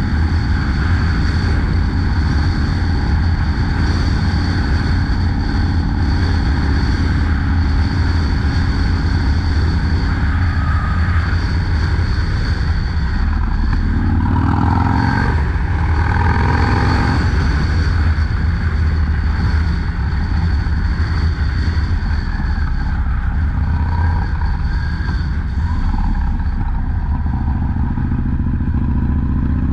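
Harley-Davidson FXDLS Low Rider S V-twin engine running steadily under way, with the revs climbing briefly about halfway through and again near the end as the bike accelerates.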